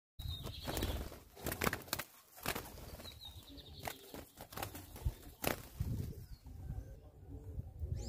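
Small doves' wings flapping and clattering in repeated bursts as they take off from and land on a seed feeder, with a few short high chirps near the start and about three seconds in.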